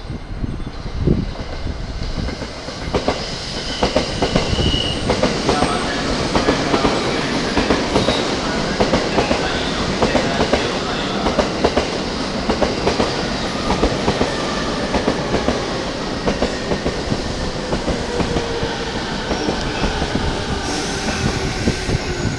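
JR 185 series electric express train pulling into the platform, its wheels clacking over the rail joints as it rolls in and slows. The running noise builds over the first few seconds as it draws close, then stays steady and loud.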